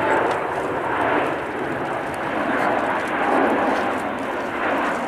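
Boeing 747 freighter's four jet engines climbing out overhead: a steady rushing jet noise that swells and eases slightly.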